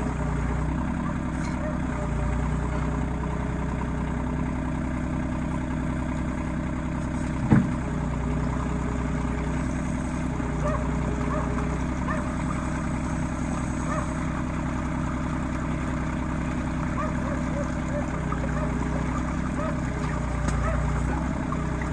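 RK25 compact tractor engine running steadily, with a single sharp clunk about seven and a half seconds in.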